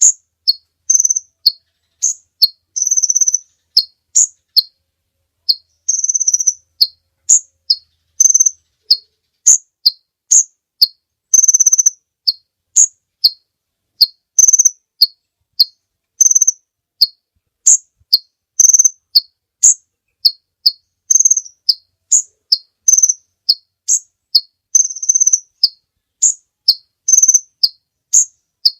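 Sunbird ('kolibri ninja') singing a rapid, repeated series of sharp, high chirps, about two a second, with an occasional longer drawn-out note mixed in.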